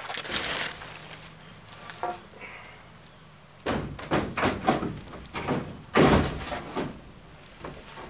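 Wood knocking and scraping as a board is pushed and tapped into place along a wooden floor edge. A short scrape comes at the start, then an irregular run of thuds from about halfway, the loudest about six seconds in.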